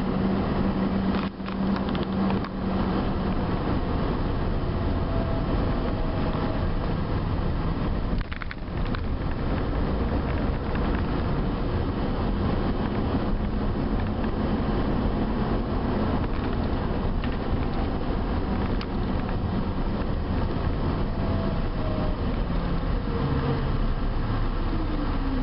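Regional bus's engine and road noise heard from inside the cabin while driving, with a steady engine hum. There are short dips about a second and eight seconds in, and near the end the engine note falls as the bus slows.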